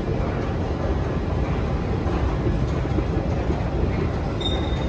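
Steady low rumble of an underground metro station's ambience and a running escalator. A brief high squeak comes near the end.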